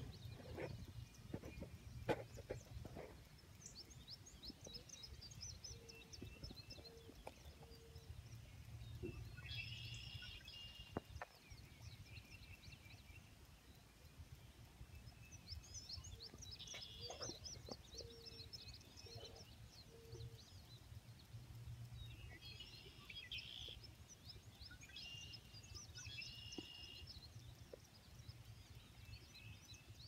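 Faint birdsong: several birds chirping in short bursts of quick, high notes, with a run of about four short, lower notes twice. A low steady rumble lies beneath, and there are a couple of soft knocks near the start.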